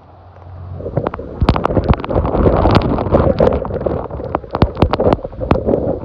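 Hurricane-force wind and driving rain blasting past the microphone, building strongly about a second in into a loud, rough rush with many sharp crackling pops of wind buffeting the microphone.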